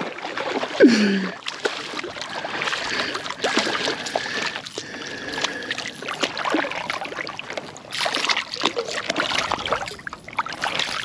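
Shallow water splashing and sloshing around a hooked gilthead sea bream thrashing at a wading angler's feet, in many short irregular splashes.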